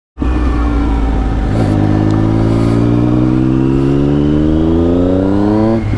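Triumph Speed Triple 1050 S's inline three-cylinder engine through a GPR Furore Nero lowboy exhaust with the baffle removed, accelerating. The engine note climbs steadily for about four seconds, then drops suddenly near the end.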